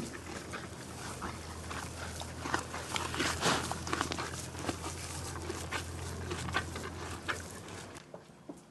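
Pony eating dry hay: irregular crunching and rustling crackles, denser and louder about three and a half seconds in.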